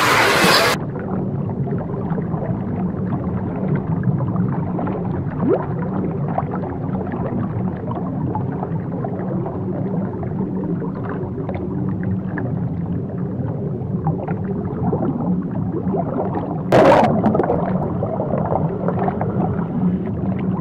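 Sea water heard from below the surface: a muffled, rumbling wash of moving water and bubbles with faint scattered ticks. A brief louder splash of water about 17 seconds in.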